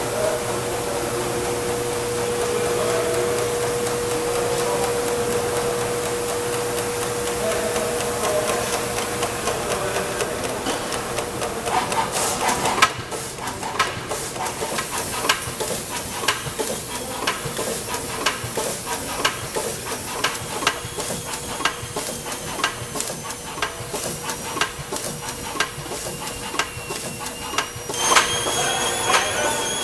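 Bottle shrink-sleeving line running: steady machine noise with a held tone, turntable and conveyor moving bottles. About twelve seconds in, rapid irregular clicking from the sleeve applicator and slat conveyor takes over. Near the end a louder hiss with high whistling tones comes in as the bottles reach the heat tunnel.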